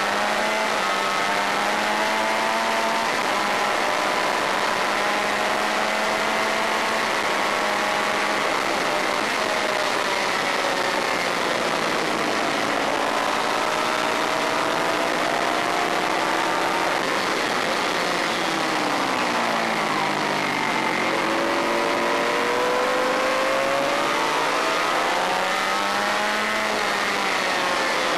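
Honda VFR400 race bike's V4 engine at high revs, heard from onboard with a constant rush of wind. It pulls hard through the gears with stepped upshifts in the first half. About two-thirds of the way through, the revs fall away as the rider brakes and shifts down, then climb again, and they ease off near the end.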